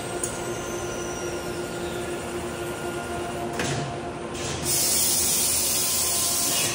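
Steady machine hum of a powered-up Citizen L12 CNC Swiss lathe, with several steady tones in it. A short hiss comes a little past halfway. About two-thirds of the way through, a loud steady hiss starts and goes on to the end.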